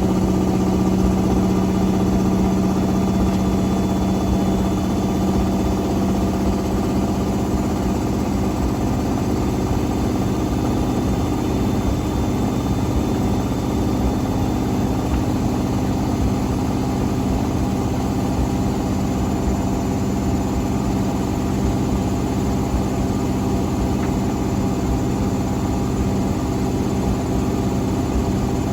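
Hotpoint Extra WMXTF942 washing machine spinning, a steady motor-and-drum hum with several held tones; its strongest low tone fades about six to eight seconds in.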